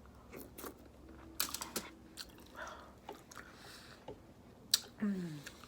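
Close-miked eating sounds: wet mouth clicks and smacks of chewing at uneven intervals, with one sharp smack near the end followed by a short hum falling in pitch.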